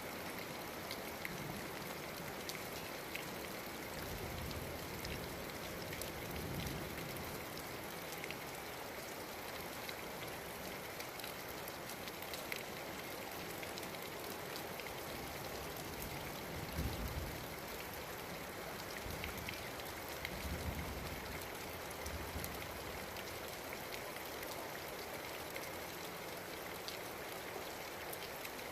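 Steady rain falling, with many small drop ticks striking a surface close by. A few brief low rumbles come through, the strongest a little past the middle.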